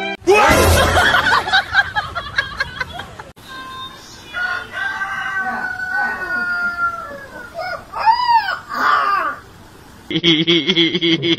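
A loud, shrill cry for the first few seconds. Then a young white puppy's long, wavering howls, falling slowly in pitch, with one short rising-and-falling howl near the end.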